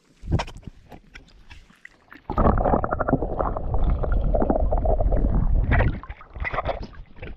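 Water gurgling and sloshing right against the microphone, loud and muffled, for about four seconds starting a couple of seconds in. Lighter splashes come before and after it.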